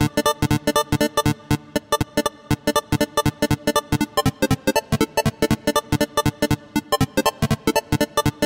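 Chiptune-style 'video game' synthesizer preset played as a fast run of short, separate notes, about five or six a second, the pitch jumping from note to note.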